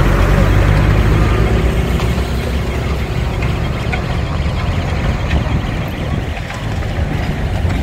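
A heavy engine idling steadily with a low rumble, strongest in the first few seconds, with a few faint ticks over it.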